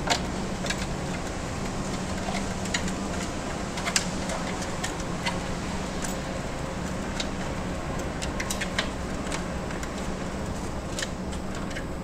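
A Labrador's claws and paws clicking and knocking irregularly on the rungs of a wooden ladder as she climbs it, over a steady low mechanical hum.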